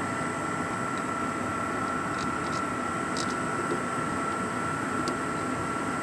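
Trane XC95M modulating gas furnace running steadily at low fire: an even mechanical rushing with a steady high-pitched whine in it. A few faint ticks come in the middle.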